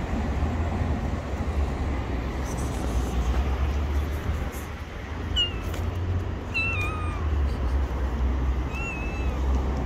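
Gray tabby cat meowing three times in short calls, about halfway through and near the end, over a steady low rumble.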